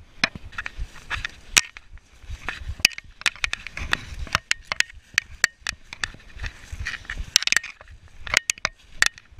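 Irregular crunching and scraping: an uneven run of sharp clicks and knocks.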